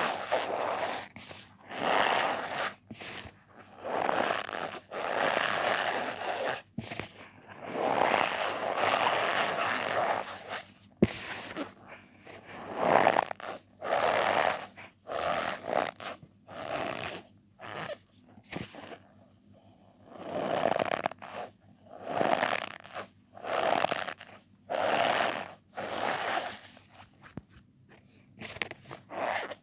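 Squeaky powder being squeezed and pressed by hand, making a string of short squeaky crunches about one every second or so, with brief pauses between them.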